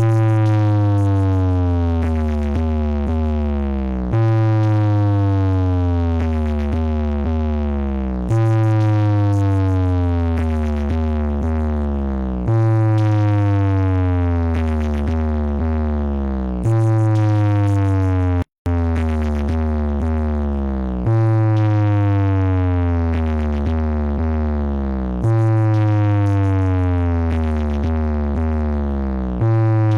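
Synthesized DJ bass test tone: a loud, deep electronic hum whose overtones sweep downward in pitch, repeating about every four seconds, with a brief cut-out about two-thirds of the way through.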